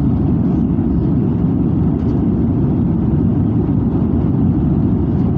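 Steady, mostly low rumble of a jet airliner's engines and airflow, heard from inside the cabin as it climbs after takeoff.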